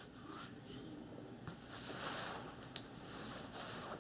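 Faint rubbing and rustling of hands handling a folding knife, with a couple of light clicks.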